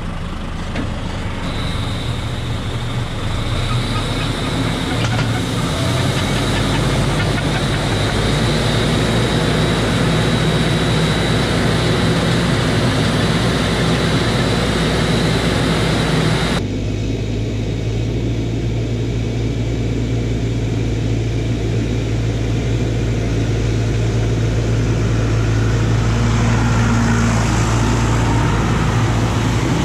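Tractor and tractor-towed air-blast tower sprayer running, its big fans blowing foliar-feed mist: a loud, steady mechanical noise with a high whine that joins about a second in. About halfway through the sound changes abruptly to a duller, lower, steady engine hum.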